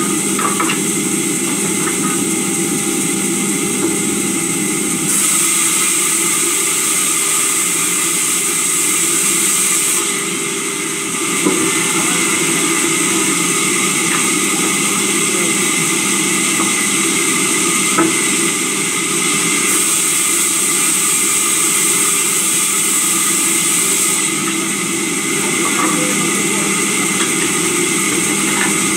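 Sawmill saw running steadily while timber is fed through it by hand. A higher hiss comes in twice for several seconds as it cuts, with a couple of sharp knocks of wood.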